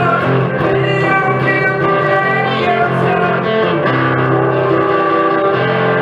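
Acoustic and electro-acoustic guitars playing together through a PA, with chords and held notes ringing on.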